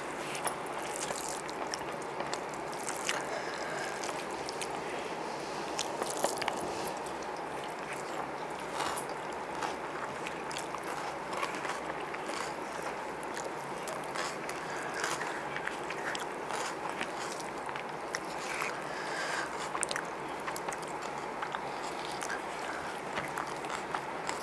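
Eating sounds: hands mixing and scooping biryani rice on banana leaves and chewing, heard as scattered small clicks and crackles over a steady background hiss.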